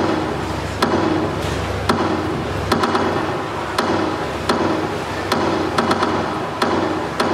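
Percussion-heavy accompaniment to a stage dance: sharp percussion strikes about once a second, some in quick clusters, each with a short ringing tone, over a low steady drone.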